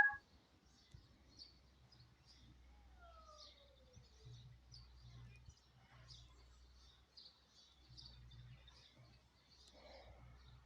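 Birds chirping faintly and on and off over a low background rumble, with one short falling call about three seconds in.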